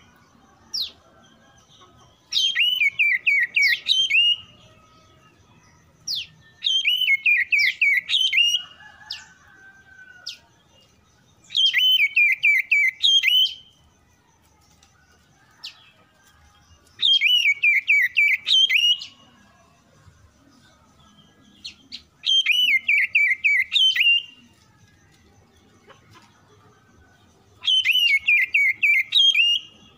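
Oriental magpie-robin (kacer) song: six loud phrases, each about two seconds of rapid, fast-repeated whistled notes. The same phrase recurs about every five seconds with short quiet gaps between.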